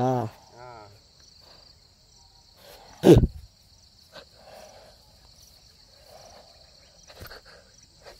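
Insects chirring steadily in a high, pulsing band. One short, loud sound about three seconds in stands out above it.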